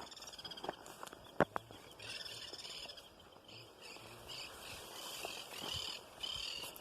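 Several wild birds singing and chirping together at dawn in scrub woodland, a steady chorus of fast high trills. A few sharp snaps between about half a second and a second and a half in, one of them louder than the rest.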